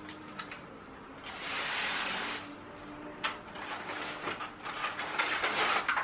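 Handling noises from a plastic toy train set in its polystyrene packaging tray: a long scrape or rub about a second in, then scattered clicks and knocks, and more rubbing near the end as the locomotive is lifted out of the tray.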